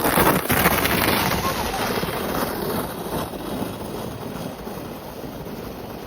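Plastic sled sliding down a hill of icy, crusted snow: a rushing, scraping hiss, loudest at the start and fading gradually as the sled moves off.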